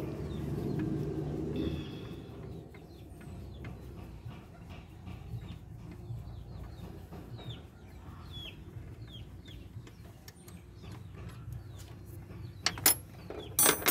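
Chickens clucking and peeping in the background, short falling chirps every second or so, with light scattered clicks of metal work in a car's engine bay. Two loud, sharp metallic clanks come near the end as the alternator is handled.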